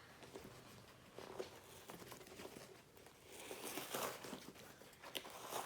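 A hard foam squishy toy being cut and pulled apart: faint crackling and tearing with small scattered clicks, a little busier past the middle. The foam is hard enough that it resists the cut and cracks.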